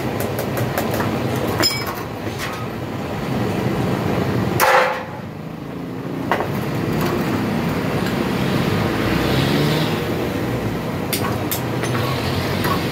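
A steady low mechanical rumble, with scattered sharp clicks and knocks from a metal car radiator being handled; the loudest knock comes just before the middle, after which the rumble briefly drops.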